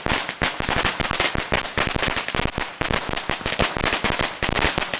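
A long string of firecrackers, 10,000 rounds made from an 8,000-round roll tied to a 2,000-round roll, going off as a rapid, unbroken crackle of many sharp bangs a second.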